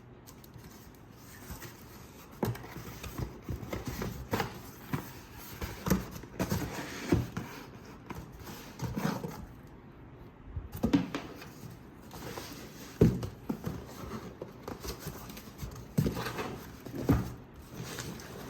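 Packaging being handled and opened by hand: irregular knocks, taps and rustling, with a few sharper knocks.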